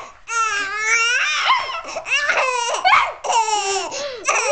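A young baby laughing in repeated high-pitched bursts, her voice sliding up and down between short breaths.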